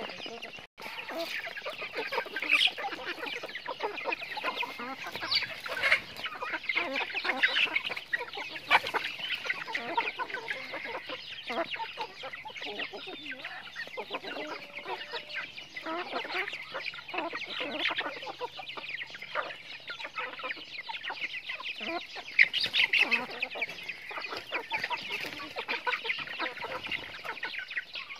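A flock of chickens clucking while feeding: many short calls overlapping in a continuous chatter.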